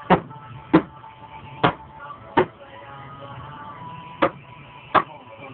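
A series of six sharp knocks at uneven intervals, with a pause of nearly two seconds after the fourth, over faint background music.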